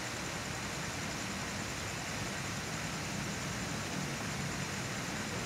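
Steady background hiss with a low hum underneath and no distinct events.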